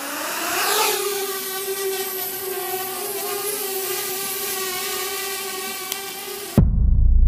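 Parrot Bebop quadcopter drone's motors spinning up with a rising whine over the first second, then holding a steady high-pitched propeller buzz as it flies. About six and a half seconds in the whine cuts off abruptly and a loud low rumble takes over.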